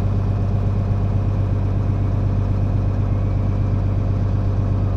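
Tractor engine running steadily at a low idle, an even hum with no change in speed.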